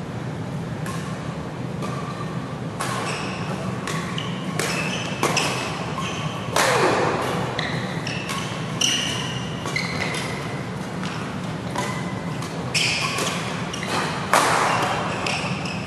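Badminton doubles rally: rackets striking the shuttlecock again and again, with two harder hits about halfway and near the end, and short squeaks of court shoes on the mat. A steady low hum runs underneath.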